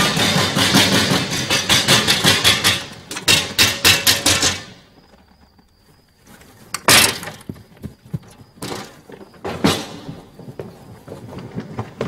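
A dense flurry of heavy thumps and bangs for about five seconds, then a short lull and three single loud thuds a second or two apart.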